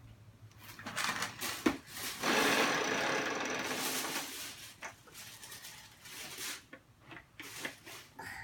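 Vacuum cleaner running, loudest for about two seconds in the middle, with a faint high whine over its noise, then quieter knocks and bumps as it is pushed about.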